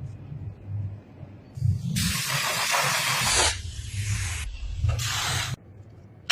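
A spray nozzle hissing in bursts: one long burst of about three seconds starting about a second and a half in, then a short one near the end.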